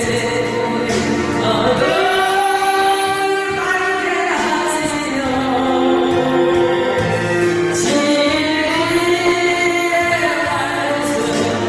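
A woman singing a slow Korean gospel song over instrumental accompaniment, with long held notes that slide between pitches.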